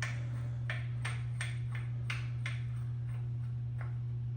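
A steady low hum with a scatter of light metallic clicks and ticks, about eight at uneven spacing, mostly in the first half, from handling the balancer bolt and tools.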